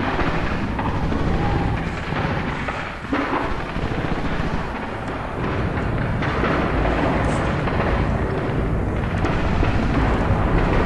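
Loud, continuous low rumbling noise with a few heavier thuds in it.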